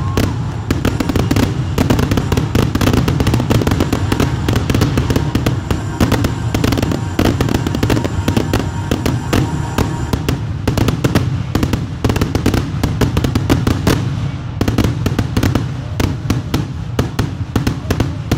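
Fireworks finale: a rapid, unbroken barrage of aerial shell bursts and crackling, many reports a second over a low rumble, the sharp crackle thinning a little in the last few seconds.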